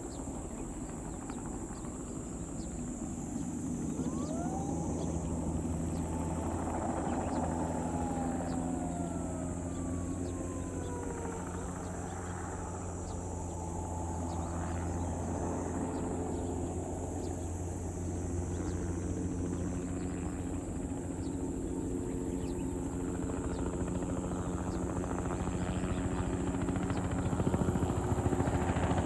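Crop-spraying helicopter flying, a steady rotor and engine hum with a high whine, with a few tones gliding down in pitch about a third of the way in; it grows louder near the end.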